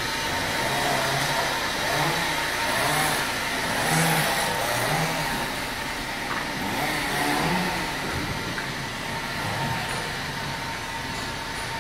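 A steady mechanical din of machinery running, with a faint constant hum.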